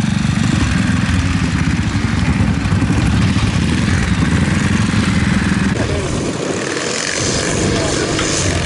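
Ariel single-cylinder four-stroke trials motorcycle engine pulling at low revs up a slippery grass slope. About six seconds in, the deep engine note drops away.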